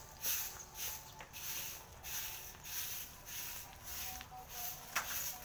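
Stick broom of coconut-leaf ribs (walis tingting) sweeping dry leaves and litter across bare dirt in brisk, scratchy strokes, about two a second, with a sharp tick about five seconds in.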